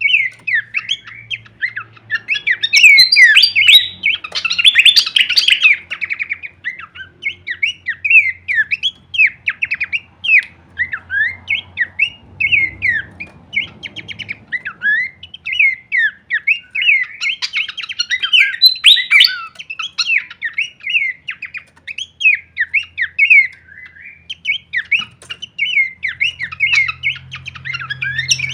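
Pelanduk semak (Horsfield's babbler) singing a long, rapid, unbroken run of varied chirps and chattering notes, busiest a few seconds in and again about two-thirds of the way through.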